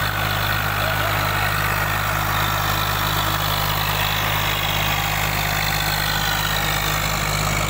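Swaraj 855 FE tractor's three-cylinder diesel engine running steadily at close range as it pulls a trolley loaded with mud through soft ground.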